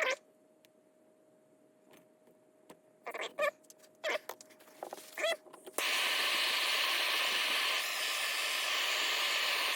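A few short meow-like calls, then about six seconds in a click as a handheld gas torch lights and burns with a steady hiss.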